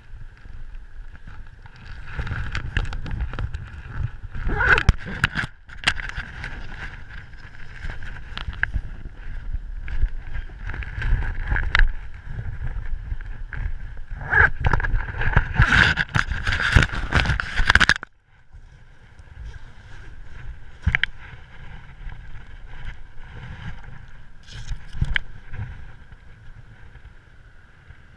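Wind rushing hard over the microphone and the wingsuit's fabric in freefall flight, a loud, low, gusting rush with sharp flapping spikes. About 18 seconds in it drops suddenly to a quieter rush.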